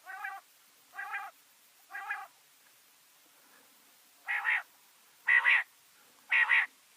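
Male quail calling: six short calls about a second apart, three fainter ones, then after a pause of about two seconds three louder ones.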